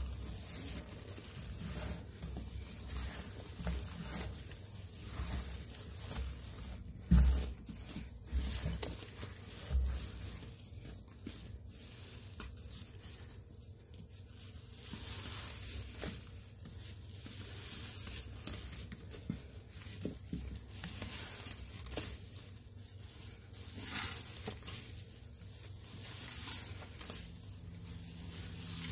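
Gloved hands squeezing and kneading sponges in a thick, wet paste of Comet powder, Ariel detergent and Fabuloso cleaner: continuous wet squishing and crackling, with a few heavier low squelches about a quarter of the way in.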